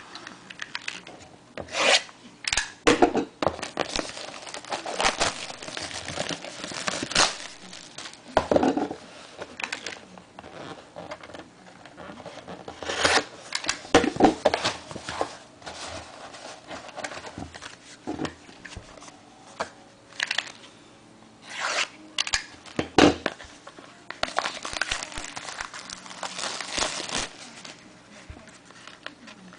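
Plastic shrink-wrap being torn and crinkled and cardboard packaging handled, as a factory-sealed trading card box is opened. The sound comes as irregular rustles, tears and sharp clicks.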